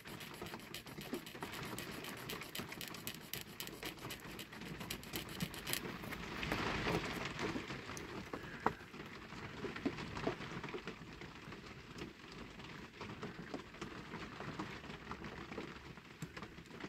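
Fine clicks, ticks and scratchy rubbing as a small clear plastic reproduction part is worked with a slim tool and pressed into a diecast toy car body to make it fit, with a louder scraping rush about six to eight seconds in.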